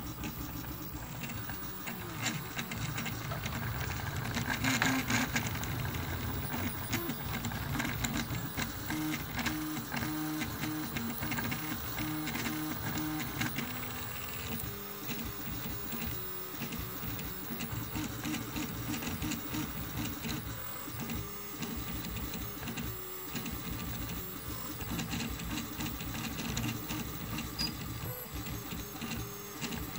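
Rebel II HD FDM 3D printer running a test print at 70 mm/s. Its stepper motors whir and whine as the print head moves, the pitch changing with each move.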